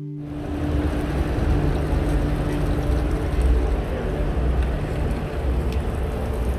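Outdoor marina dock ambience: a steady noisy wash with an uneven low rumble, like wind buffeting the microphone, as the last held notes of background music fade away under it.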